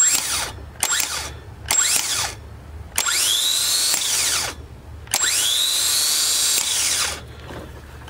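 Rebuilt Mitsubishi 3-to-1 gear-reduction starter motor bench-tested off jumper wires: three short bumps, then two longer free spins of about a second and a half to two seconds. Each run starts with a sharp clack and has a whine that climbs as the motor spins up and falls away as it coasts down. It spins freely on its new brushes, a sign the rebuild works.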